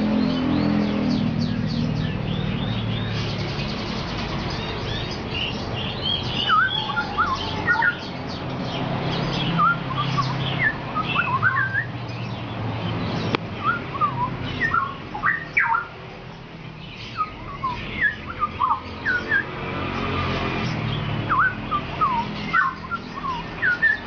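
Straw-headed bulbul (cucak rowo) singing: clusters of short whistled notes and quick sweeping chirps with brief gaps between them, over a low steady hum.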